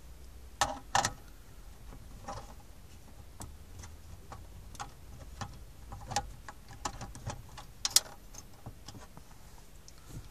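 Sharp plastic clicks and knocks from the detachable faceplate of a Jameson JS-8400 car stereo being fitted onto the head unit and pressed home. The clicks come irregularly, the loudest near the start and again about eight seconds in.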